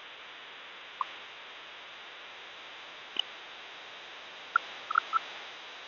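Steady hiss with no engine rumble, broken by a few brief, sharp high chirps or clicks: one about a second in, one after three seconds, and a quick cluster near the end.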